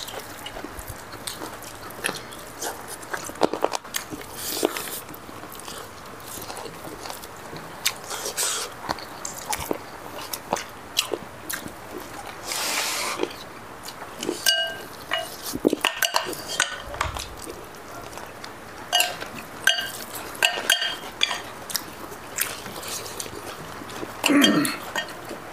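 Close-up eating sounds of people chewing chicken and rice by hand: irregular smacks, small crunches and clicks, with a few brief pings of tableware.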